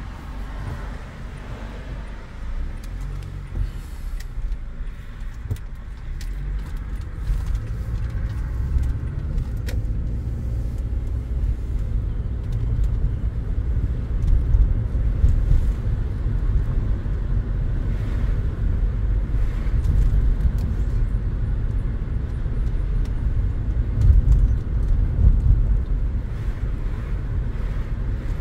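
Car interior noise while driving: a steady low rumble of engine and tyres heard inside the cabin, growing louder over the first several seconds as the car picks up speed, with a few light clicks and rattles.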